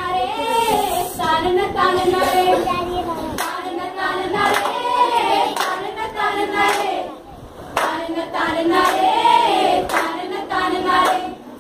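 A group of young voices singing a song together, with sharp hand claps keeping time, most of them in the second half.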